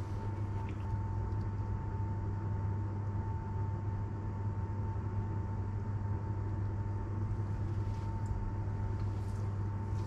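Steady low machine hum with a thin, steady whine above it, and a few faint light clicks near the end.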